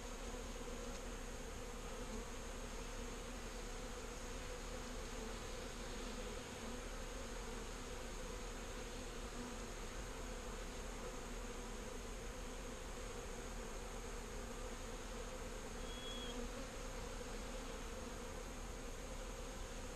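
Many honeybees buzzing in flight around an opened hive: a steady, even hum.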